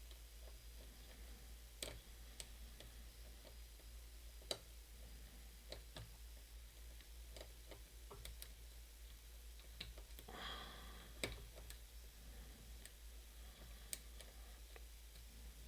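Faint, irregular clicks and ticks of a lock pick and tension wrench working the pins of a pin-tumbler challenge lock, with a brief scraping rustle about two-thirds of the way through.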